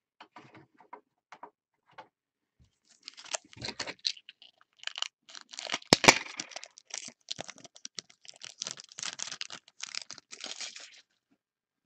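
Foil wrapper of a trading-card pack being torn open and crinkled in the hands: a few light clicks at first, then a dense rustling crinkle that starts about three seconds in, with a sharp crack near the middle, and stops just before the end.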